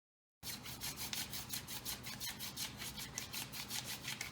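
Wooden hand-drill spindle spun back and forth between the palms, grinding in the notch of a hearth board to build a friction-fire ember: a fast, rhythmic rubbing, about five or six strokes a second, starting about half a second in.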